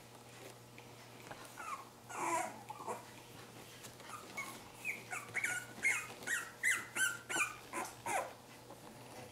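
Three-week-old Cavalier King Charles Spaniel puppies whimpering in short high squeaks: a few cries about two seconds in, then a quicker run of about two a second from about four and a half to eight seconds, each one dropping in pitch.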